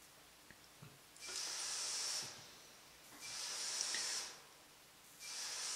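Ultrasonic sieve, driven at about 37 kHz, hissing in three bursts of about a second each, one every two seconds, with quiet between.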